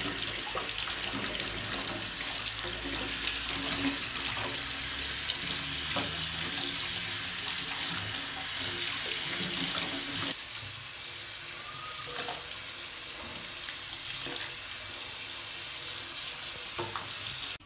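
Water running from a sink faucet and splashing onto a wet baby monkey and the washing hands into a stainless steel sink. About ten seconds in the splashing turns quieter and thinner.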